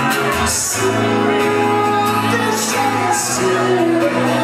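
A woman singing live to her own acoustic guitar, holding long notes.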